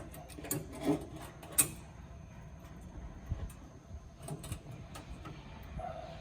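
Scattered clicks and knocks of hand tools and metal parts, loudest about a second and a half in, as the transmission dipstick tube is worked loose under the truck.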